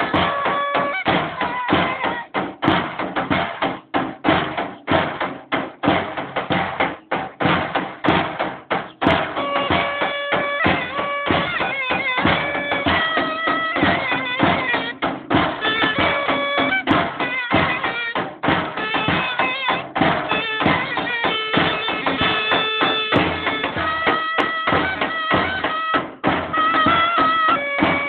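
Davul bass drum beaten with a stick in a fast, steady rhythm while a clarinet plays a folk melody over it; the clarinet line grows strong about nine seconds in.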